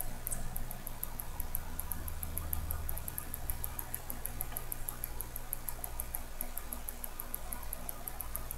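Faint, fast, even ticking, about six or seven ticks a second, over a steady low hum.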